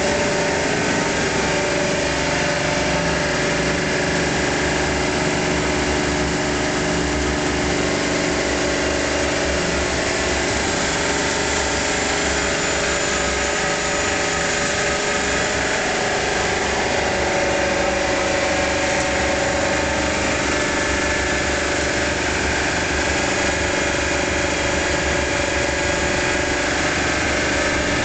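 Homogenizing machine running steadily: an electric motor driving a high-pressure plunger pump, with a small feed pump, forcing a water and food-oil mix through the homogenizer, giving a constant hum with several held tones.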